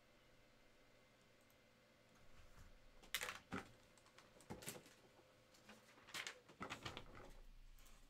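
Computer keyboard being typed on in a few short bursts of light clicks and taps, starting about three seconds in after a quiet stretch.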